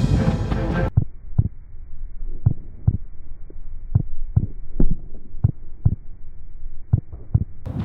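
Background music cuts off about a second in, followed by a muffled run of low, dull thumps, often in pairs and roughly one to two a second, like a heartbeat sound effect.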